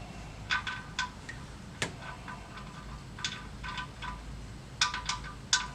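Ratchet wrench clicking in short runs of quick metallic ticks as the oil drain plug is run back into the oil pan, with a few louder clicks near the end.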